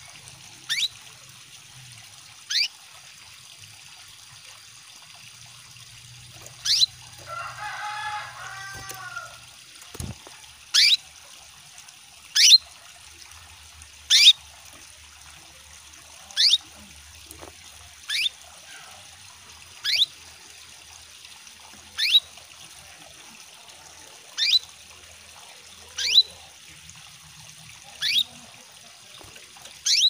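Female canary calling: a short, high, downward-sweeping chirp repeated about every two seconds, the call of a hen in breeding condition, of the kind used to call males into song. It sounds over a steady trickle of running water. A lower warbling sound comes in briefly about seven seconds in.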